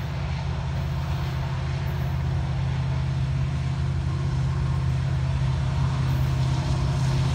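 Steady low diesel engine drone that grows slowly louder, from the approaching freight train's locomotives and a tractor mower running beside the track.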